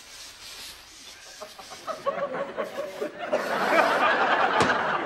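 Studio audience laughing: it starts faintly and swells into loud, sustained laughter about three seconds in.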